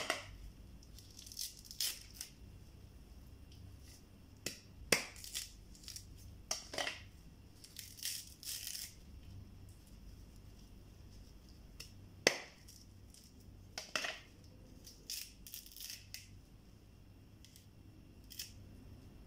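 Fibrous coconut husk being torn and peeled off by hand: irregular short rips and crackles of fibre pulling apart, with a couple of sharp knocks.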